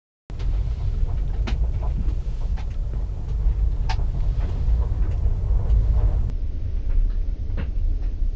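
Low, steady road rumble inside a moving car, with a few light clicks and taps over it.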